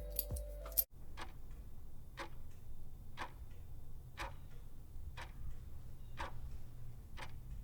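Clock ticking steadily, about once a second, over a low hum; background music cuts off just under a second in.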